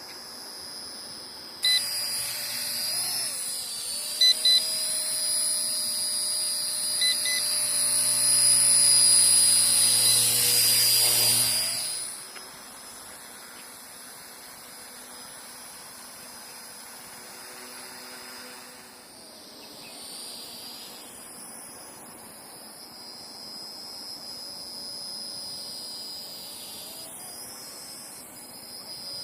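Era C032 RC H-1 Huey helicopter's small electric motor and rotor running with a steady high whine, loud for the first dozen seconds, then falling away to a much quieter whine. A few short electronic beeps sound in the first several seconds.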